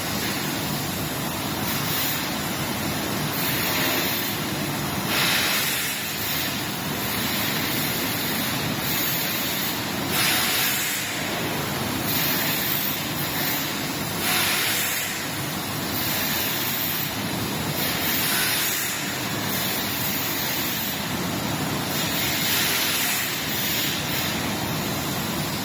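YC-10S industrial dehumidifiers running: a steady rush of fan and airflow noise, with brief brighter hissy swells every few seconds.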